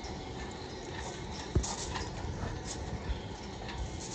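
Footsteps crunching on gravel, a string of uneven steps, with one low thump about one and a half seconds in.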